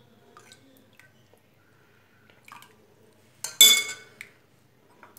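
A steel spoon clinks against a ceramic bowl of pani puri water: one loud ringing clink about three and a half seconds in, after a few faint taps.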